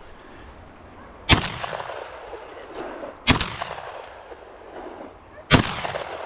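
Three shotgun shots about two seconds apart, each a sharp blast followed by a brief echo rolling off across the hillside.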